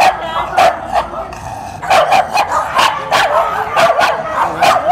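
Scottish terrier barking repeatedly: a quick run of short, sharp yaps, about ten in all, with a pause of roughly a second shortly after the start.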